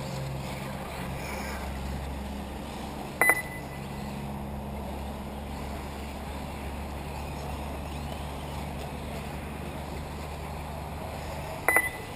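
A steady low hum, broken by two sharp clinks that ring briefly: one about three seconds in and one near the end.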